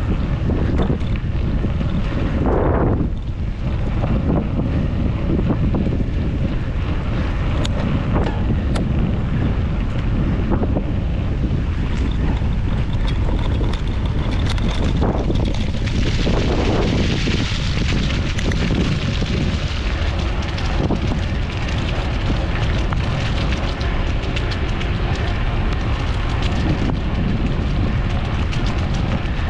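Wind buffeting the microphone of a handlebar-mounted GoPro Hero 8 while a mountain bike is ridden, with a steady low rumble and frequent small knocks and rattles from the bike and mount jolting over the trail.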